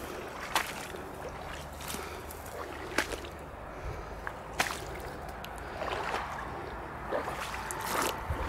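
Footsteps through dead grass and waterlogged ground, with a sharp swish or snap of dry stalks every second or so, over a steady low rumble of wind on the microphone.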